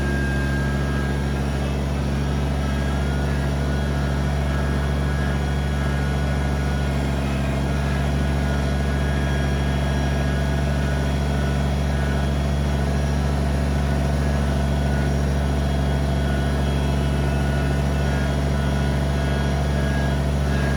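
Kubota BX23S sub-compact tractor's three-cylinder diesel engine running steadily at an even speed.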